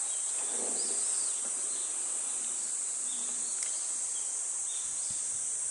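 Steady high-pitched insect chorus from the wooded shore, with a few faint short chirps over it.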